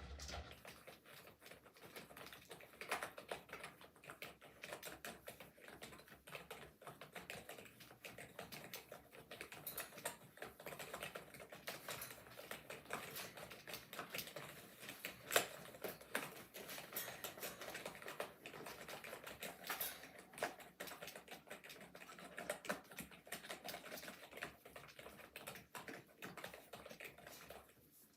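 Rapid, random typing on a budget gaming keyboard with raised keys: a dense, irregular run of key clicks, with one louder clack about halfway through. The typing stops just before the end.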